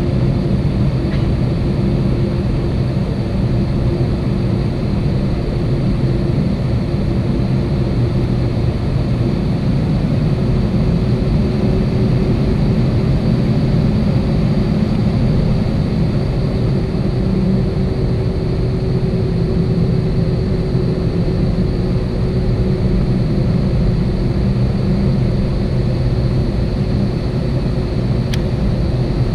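Airbus A320 engines and cabin air heard from inside the cabin while taxiing: a steady low rumble with a faint steady whine over it. There is no spool-up.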